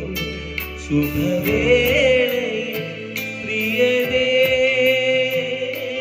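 A man singing into a microphone over accompaniment with a steady beat. In the second half he holds one long, wavering note.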